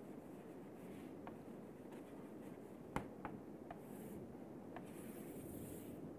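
Chalk writing on a chalkboard: faint taps and scratches as words are written and underlined, with a sharper tap about three seconds in and a longer scrape near the end.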